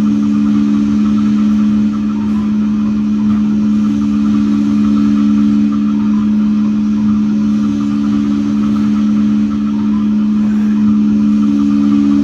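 Saxophone performance: a loud, buzzing drone of two steady low notes held without a break, over a rough rumble beneath.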